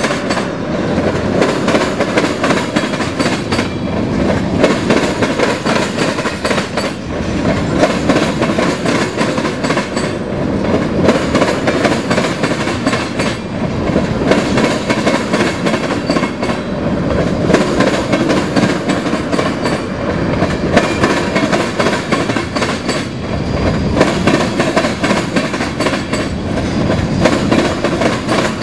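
Freight train of tank cars and covered hoppers rolling past, a steady, loud rumble and clatter of steel wheels on the rails.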